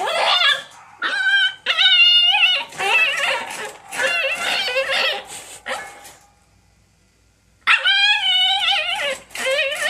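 Husky puppy whining and yowling in a run of wavering, pitched cries, falling quiet for about a second and a half, then starting up again.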